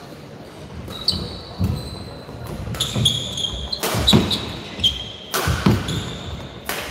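Badminton rally: shuttlecock struck by rackets again and again, roughly every half second to a second, with short high squeaks of shoes on the court floor between hits, echoing in a large hall. The loudest hits come a little past the middle.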